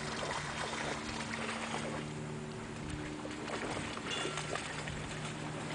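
Faint, steady low drone of a distant motor over outdoor background noise.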